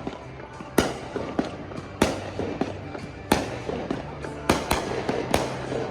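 Fireworks shells bursting in a string of sharp booms, about one a second, with a quick double bang near the end and smaller pops and crackles between, over background music.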